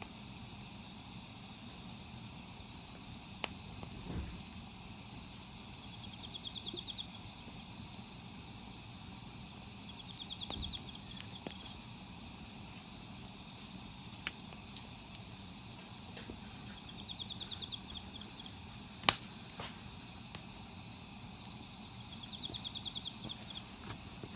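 Quiet outdoor ambience with a short, high, rapidly pulsed animal trill repeating four times, each lasting about a second, over a steady hiss. A few sharp clicks and pops stand out, the loudest a little past the middle.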